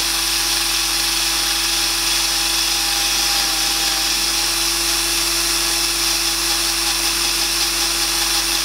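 Drill running steadily with a small wire wheel scouring rust from the bore of a motorcycle frame's steering-head neck: an even motor hum under the scratchy hiss of the wire bristles on the metal.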